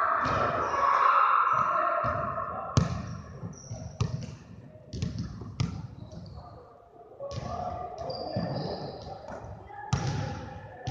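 Basketball bouncing on a hardwood gym floor: a handful of sharp bounces at uneven intervals, as in pickup play.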